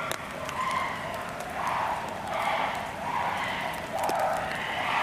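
Chimpanzees calling in a rhythmic series of repeated calls, about one every three-quarters of a second. There is a sharp knock about four seconds in.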